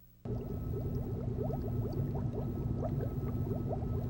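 Liquid bubbling, a dense steady stream of small bubbles popping over a low steady hum. It starts suddenly about a quarter of a second in.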